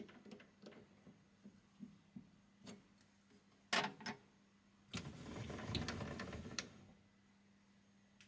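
A metal lathe scroll chuck being tightened on a drill bit with its chuck key: small scattered clicks, then two sharp metal clicks about four seconds in as the key comes out. From about five seconds in, nearly two seconds of metal scraping as the dial indicator's base is slid along the lathe bed.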